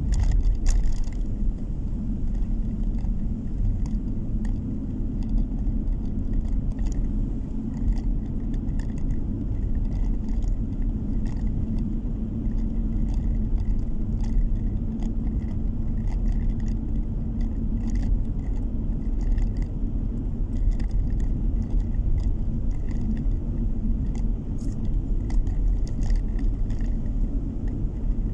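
Car interior noise while driving at steady speed: a steady low rumble of engine and tyres on the road, with scattered light ticks and rattles.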